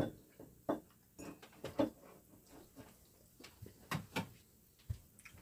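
Scattered light knocks and clunks of ceramic mugs being handled and set on a wooden table, with a chair shifting as someone gets up; the loudest pair of knocks comes about four seconds in.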